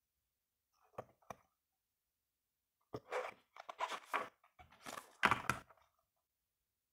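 Two light knocks about a second in, then a run of paper rustling and page riffling as a paperback manga volume's pages are flipped through, loudest near the end.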